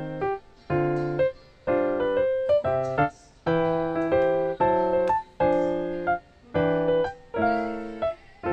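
Background piano music: a string of short chords, each broken off by a brief gap.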